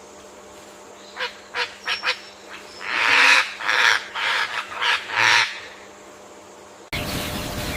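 Waterfowl calling: a few sharp clicks, then about five loud, rasping calls in quick succession. Near the end the sound cuts abruptly to a louder, steady rushing background.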